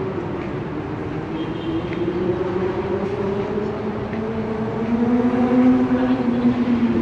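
A motor vehicle engine droning, its pitch rising slowly and its level growing toward the end, over a steady wash of city noise.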